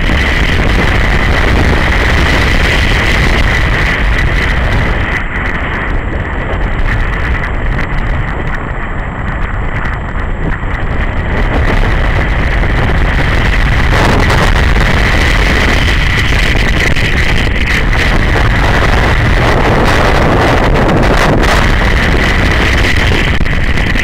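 Wind buffeting the microphone of a camera riding on a BMW G 650 GS Sertão motorcycle under way, over the running of its single-cylinder engine. The hiss of the wind thins out for several seconds about a quarter of the way in, then comes back.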